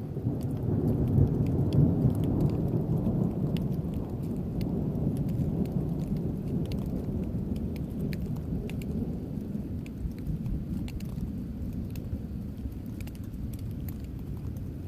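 A long rolling thunder rumble that swells about a second in and slowly dies away, with scattered raindrops ticking over it.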